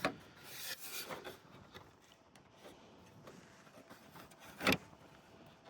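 Hands and a tool rubbing and scraping at the small metal clips that hold the latch and lock rods to a truck's inside door handle, with one sharp click a little after four seconds in.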